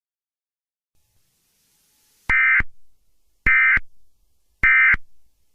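Emergency Alert System end-of-message signal: three short, identical bursts of SAME digital data tones about a second apart, each fading off in a brief echo, marking the close of the alert.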